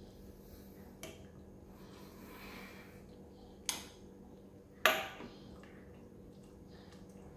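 Metal ladle clinking against an aluminium soup pot and a ceramic bowl while soup is served: a faint tap, then two sharp clinks about a second apart, the second the loudest and ringing briefly. A steady low hum runs underneath.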